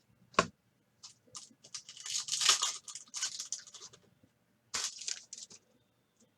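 Trading-card pack wrapper being torn open and crinkled: a sharp snap about half a second in, a run of tearing and crackling, then another short crinkle near the end.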